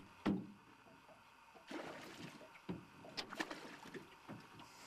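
Handling noise in a small aluminium fishing boat: one sharp, loud knock about a quarter second in, then scattered lighter clicks and knocks while a fish is being played on a bent rod.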